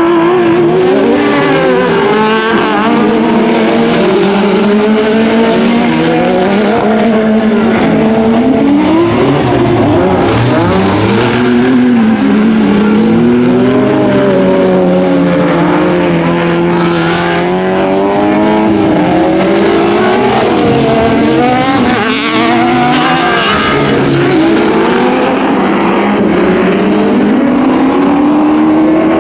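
Several Super Buggy autocross cars racing on a dirt track, their engines revving up and falling back through gear changes, several engine notes overlapping and rising and falling in pitch.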